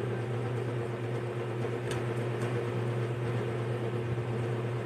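Steady low mechanical hum with a constant tone, like a running room appliance, broken by two faint clicks about two seconds in.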